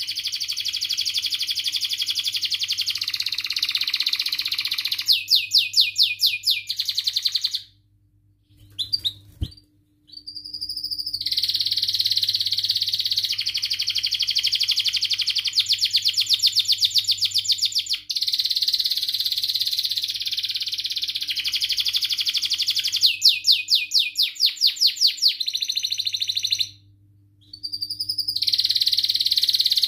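Domestic canary singing a long, continuous song of fast trills and rolling phrases, including two runs of loud, separate repeated notes, about five and twenty-three seconds in. The song breaks off briefly twice, about eight seconds in and again near the end.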